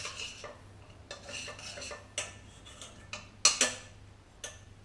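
A spoon stirring a butter-and-flour roux in a stainless steel pot, scraping briefly, then a string of separate clinks and knocks of utensils against the pot. The loudest are two sharp clinks close together about three and a half seconds in.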